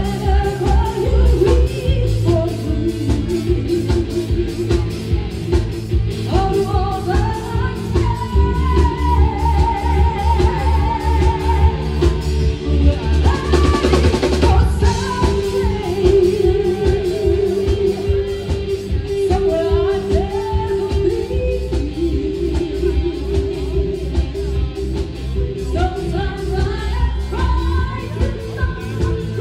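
A live band playing a pop song through PA speakers, with a woman singing the melody over a steady drum-kit beat.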